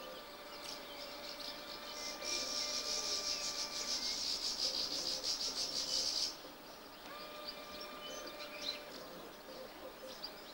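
Outdoor insect song: a fast, evenly pulsing high buzz that starts about two seconds in and stops abruptly about six seconds in, with small bird chirps around it.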